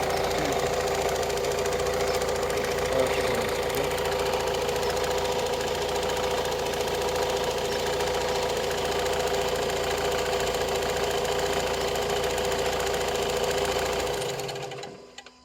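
Opel Astra J 1.7 CDTI four-cylinder turbodiesel engine running steadily with a clicking noise, which the owner questions a week after buying the car. The sound dies away about a second before the end.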